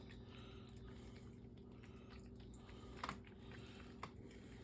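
Near silence: a low steady room hum with a few faint short clicks, the clearest about three seconds in and another about a second later.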